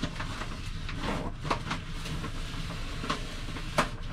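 Peel-and-stick wallpaper sheet rustling and crackling as it is handled and comes loose from a curved wall, with several sharp crackles, the loudest near the end. A steady low hum runs underneath.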